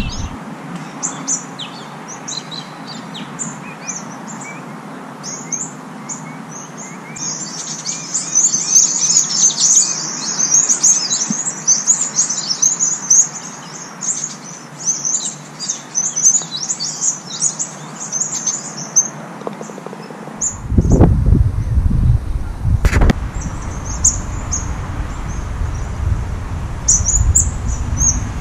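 Many small birds chirping, thickest through the middle. About two-thirds of the way in, wind starts buffeting the microphone with a low rumble, and a single sharp click follows a couple of seconds later.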